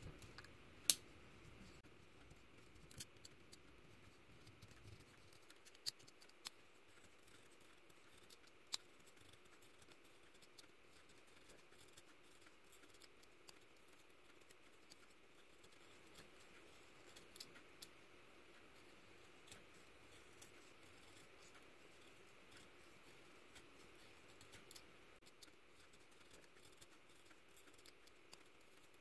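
Utility knife blade shaving wood from a pencil by hand: faint, repeated scraping strokes with a few sharp clicks, the loudest about a second in.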